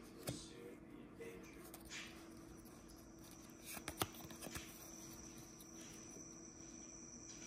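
Faint clicks and slides of baseball trading cards being handled and flipped through by hand, a few short ticks, the clearest about four seconds in, over a quiet room with a faint steady high whine.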